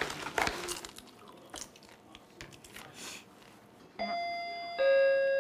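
A few soft rustles and clicks, then about four seconds in a doorbell chime rings out. It plays sustained notes that step down in pitch, the second note starting about a second after the first and still ringing at the end.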